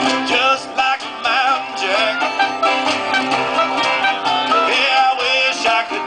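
Live acoustic string band music: strummed guitar and plucked strings in a country or bluegrass style, with a wavering lead line on top.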